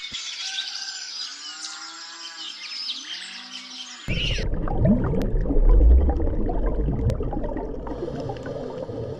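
Animal calls: several bending, pitched cries, then an abrupt cut about four seconds in to a noisier recording with a low rumble and a short rising call.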